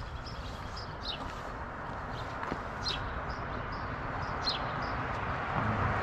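Small birds chirping, with several short downward-sliding chirps and brief high peeps. Under them is the hiss of street traffic, which grows louder toward the end as a vehicle approaches.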